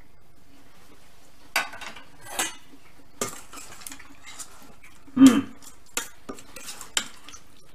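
A serving spoon clinking and scraping against a stainless steel pot as salad is stirred and scooped: scattered separate knocks, with the loudest about five seconds in.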